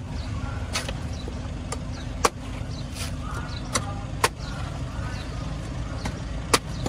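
Cleaver chopping the husk off a young green coconut on a wooden block: about eight sharp, irregular chops, over a steady low rumble.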